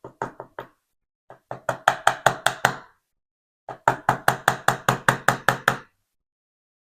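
Rapid knocking on a DOM ix5 HT lock being taken apart to free an internal part. There are three quick runs of sharp knocks at about five a second, short at first and then longer and louder.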